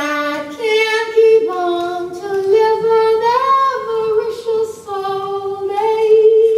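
A high voice singing unaccompanied, holding a series of long notes that step between a few pitches, with a slight rise and fall near the middle.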